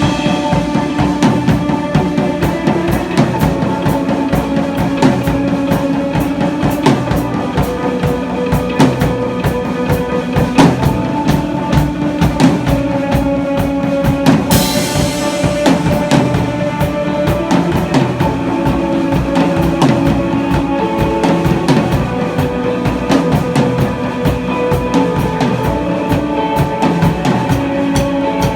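Drum kit played with a steady beat of bass drum and snare, along to a recorded rock song during an instrumental passage with no singing.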